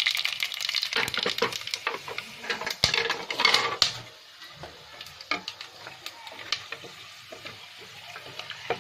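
Whole spices sizzling in hot oil in an aluminium pressure-cooker pan: a loud hiss for about the first four seconds, then it dies down to quieter crackling with a few sharp clicks.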